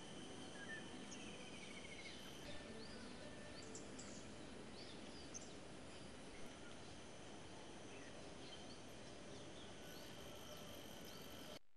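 Faint outdoor park ambience: many short bird chirps over a steady hiss and a thin steady high tone, cutting off suddenly near the end.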